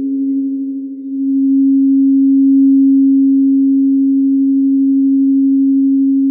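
Singing bowl ringing with one sustained, pure low tone that wavers slightly. It dips about a second in, then swells up and holds steady.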